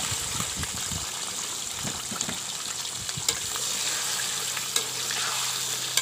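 Raw chicken pieces sizzling in hot oil in a metal karahi, just added and starting to sear, while a metal spoon stirs them, scraping and clicking against the pan a few times.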